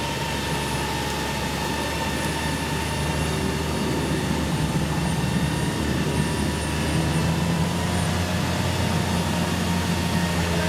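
Jeep Wrangler JKU's engine running steadily while its electric winch winds in the cable, a continuous mechanical hum that grows a little louder about halfway through.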